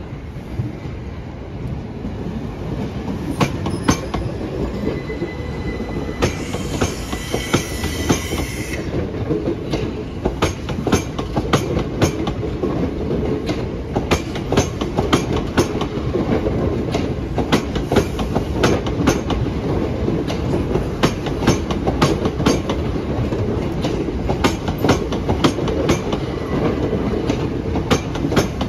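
Southeastern Class 375 Electrostar electric multiple unit running past on the station throat, with a steady rumble and a fast, irregular stream of wheel clicks over rail joints and pointwork. About six seconds in, a high tone rings for two or three seconds.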